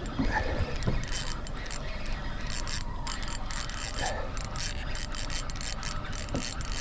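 Fishing reel clicking rapidly and unevenly as a fish hooked on the strike pulls against it.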